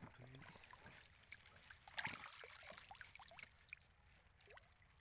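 Faint water trickling and splashing with small knocks as a wet net and a live carp are handled at the pond's edge, with a louder splash about two seconds in. A short, high, falling whistle is heard near the end.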